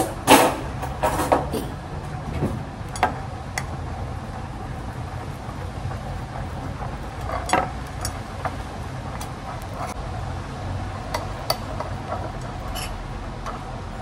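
A metal fork clinking and scraping against a ceramic bowl while mashing and stirring a soft banana and oat dough, in irregular taps, with the loudest knocks in the first couple of seconds. A steady low hum runs underneath.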